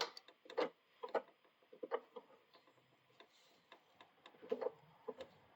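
Light, irregular clicks and ticks from a mini bike's cable-operated brake as the brake lever is worked and the new caliper's arm moves with it.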